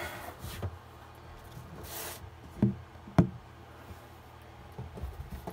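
A large cardboard box being handled as its flaps and lid are opened: a brief scrape of cardboard sliding about two seconds in, then two sharp knocks about half a second apart, with a few light taps.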